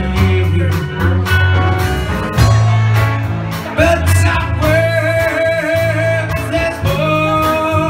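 A live soul and blues band playing a song with a steady beat and bass line, and long held notes over the top from about halfway through.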